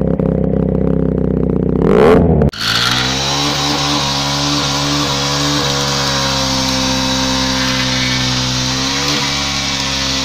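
Bajaj Dominar 400's single-cylinder engine held at high revs in a burnout. About two seconds in the note surges and then drops off sharply, and it settles into a steady high-revving drone with a hiss over it.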